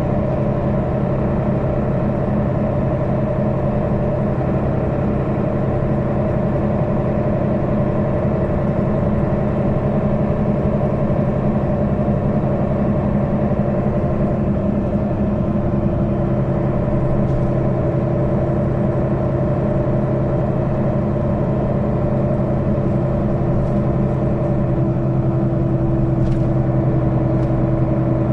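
Mercedes-Benz Citaro O530 city bus's diesel engine and drivetrain running steadily, heard from inside the passenger cabin; the drone holds one even pitch with no revving.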